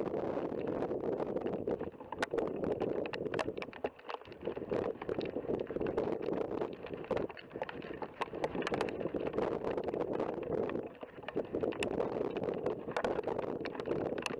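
Wind rushing over the microphone in gusts, easing briefly twice, with scattered sharp ticks throughout.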